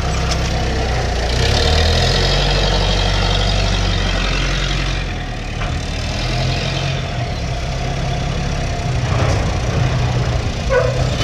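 Forklift engine running loudly while unloading a truck, with a higher whine over its low drone; it eases off a little about five seconds in.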